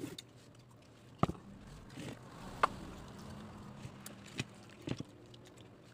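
A spoon clicking and scraping against a plate a handful of times, at irregular intervals, as rice is scooped up and eaten.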